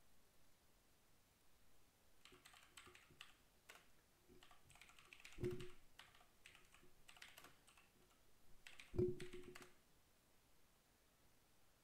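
Computer keyboard typing: a run of quick key clicks lasting several seconds, with two heavier keystrokes, one about halfway and one near the end.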